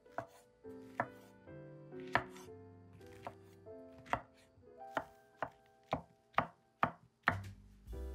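A kitchen knife chopping on a cutting board: about a dozen sharp strikes, about a second apart at first and coming quicker in the second half.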